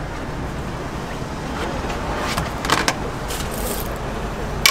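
Busy street ambience: a steady rumble of traffic, with a few short clicks and clatters, twice around the middle and once at the very end.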